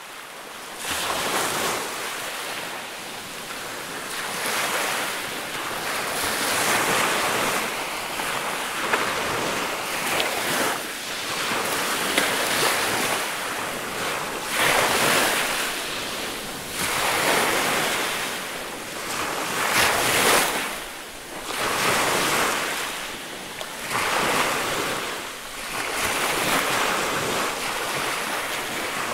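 Ocean waves breaking on a shore, the surf swelling and falling back every two to three seconds.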